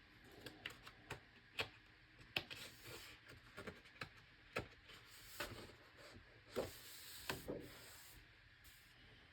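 Large pages of an oversized hardcover art book being turned and handled: faint paper rubbing and swishing, with scattered light taps and clicks.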